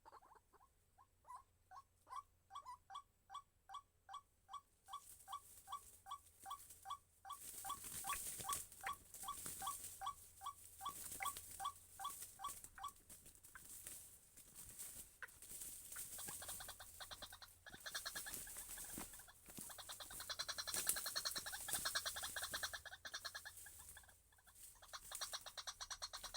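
White-breasted waterhen calling, a rapid series of short repeated notes, about three a second, that stops about halfway through. From about a third of the way in a scratchy hissing noise rises and carries on to the end.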